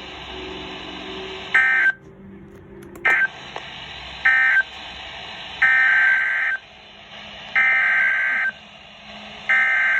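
Emergency Alert System SAME digital data bursts, a buzzy warbling tone: three short end-of-message bursts, then three longer header bursts of about a second each that mark the start of the next severe thunderstorm warning.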